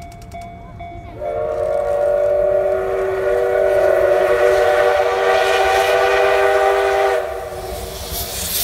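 Steam locomotive whistle from the double-headed C11 325 and C12 66 tank engines: one long blast of about six seconds, with several pitches sounding together, that cuts off sharply. Near the end, hissing steam comes in as the train works away.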